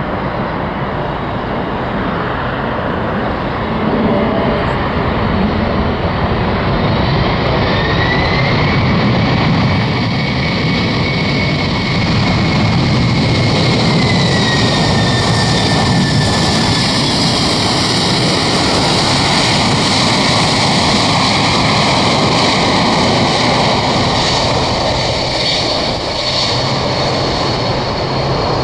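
Jet engines of a Boeing 767 freighter running loud on the runway: a steady rumble with a high whine that rises about eight seconds in, holds, then slides down in pitch as the aircraft passes.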